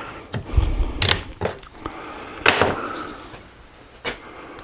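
Handling noise from parts and tools on a workbench: a series of knocks and clicks, with a low thump about half a second in.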